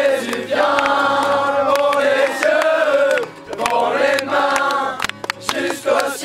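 A large group of young voices singing a French Christian worship song in unison, holding long notes with a short break about three seconds in. Scattered sharp hand claps come through the singing.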